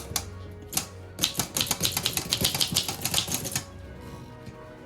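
Keys of an old Corona folding portable typewriter being struck, making a quick run of sharp clacks. A couple of single clacks come first, then a steady burst of several strokes a second from about a second in until past the three-second mark.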